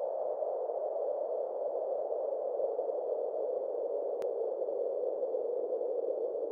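A steady, hollow droning hum, a sound-effect drone, that holds level throughout, with a single faint click about four seconds in.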